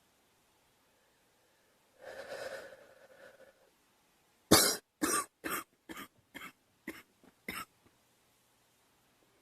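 A girl coughing: a throat-clearing sound about two seconds in, then a fit of about eight short coughs, the first the loudest, tapering off.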